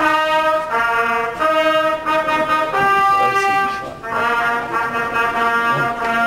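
A trumpet playing a tune of held notes, breaking off briefly about four seconds in before going on.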